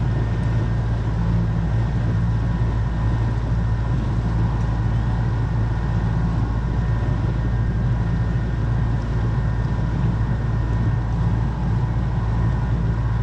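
A small boat's motor running steadily under way, a constant hum that holds the same speed and pitch throughout.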